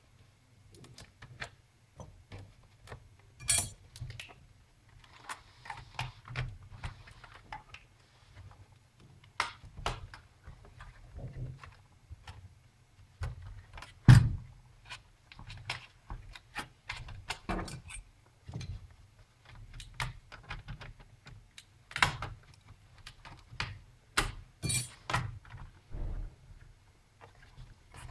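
Plastic case of an Asus Eee PC T101MT netbook being pried apart along its edge with an opening tool: irregular clicks, snaps and light knocks as the clips let go, the loudest knock about 14 seconds in.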